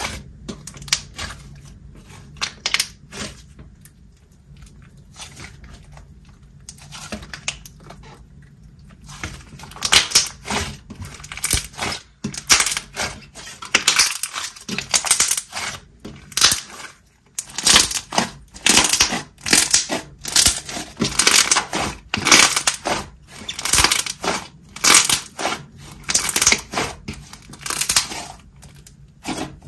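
Thick, glossy slime being pressed and squished by hand, giving quiet, sparse clicks at first and then dense crackling clicks and pops. From about halfway through, the squishes come in regular bursts a little faster than once a second.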